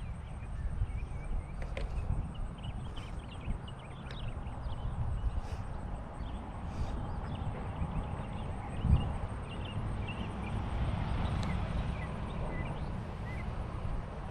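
Outdoor ambience of scattered short bird chirps over a steady high insect drone, with a low rumble throughout and one brief thump about nine seconds in.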